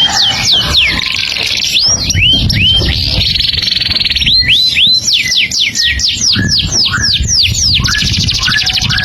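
Songbird singing without pause: runs of quick whistled notes that sweep down from high to lower pitch, arching rising-and-falling notes, and fast buzzy trills around three and eight seconds in.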